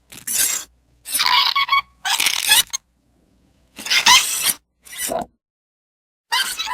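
Baby monster creature sound effect: a series of about six short, scratchy squeaks and squeals, each under a second long, separated by brief silences.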